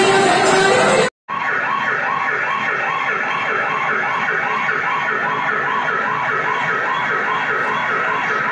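Dance music breaks off at a cut about a second in. A recorded siren-like wail follows, rising and falling quickly about three times a second and repeating steadily, played over a hall loudspeaker as the soundtrack of a mime act.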